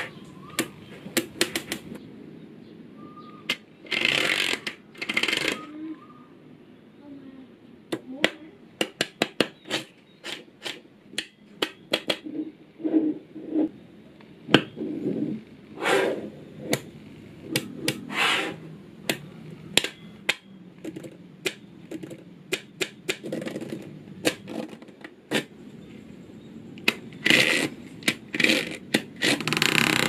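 Small neodymium magnetic balls clicking and snapping together as layers are pressed into a block, with sharp single clicks, quick runs of clicks and short rattling bursts as rows of balls shift against each other.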